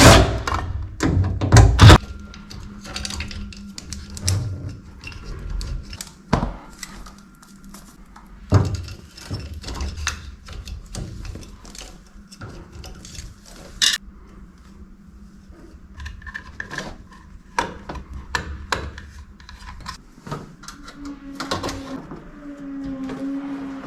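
Irregular clicks, taps and knocks of hands handling equipment and tools, loudest in the first two seconds. A steady low hum starts near the end.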